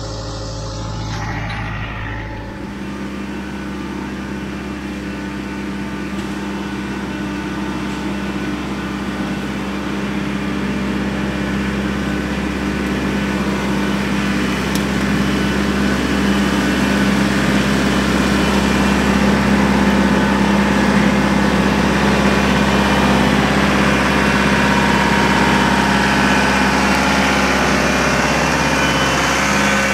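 RK compact tractor's engine working hard under load in low range, climbing a steep hill with a grapple full of firewood and a log in tow. It runs steadily and grows louder as the tractor approaches and comes alongside, then holds.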